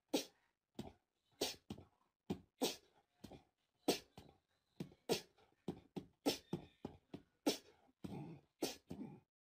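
A small dog huffing in short, sharp puffs, about two a second and unevenly spaced.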